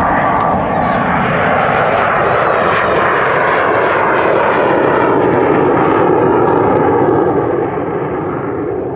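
BAC Strikemaster jet in a banking display pass, its Rolls-Royce Viper turbojet giving a loud, steady rushing roar that eases slightly near the end.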